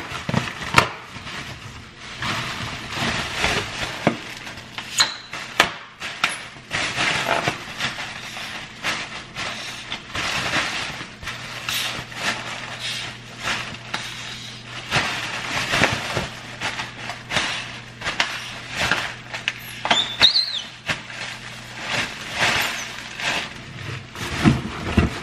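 Clear plastic packaging crinkling and rustling by hand, with irregular crackles and light taps as a parcel is unwrapped.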